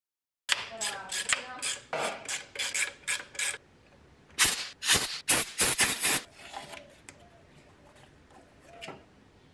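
A metal hand tool rubbing and scraping over masking tape laid on a metal carburettor flange, with some squeaks, followed by a fast run of sharp taps on the flange and a single tap near the end.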